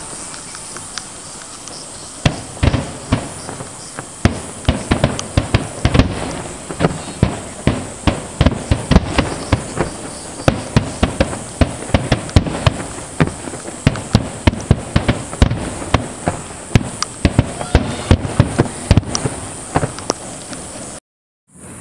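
Many aerial firework shells bursting one after another, dozens of booms that come thickest through the middle. The sound cuts out for a moment near the end.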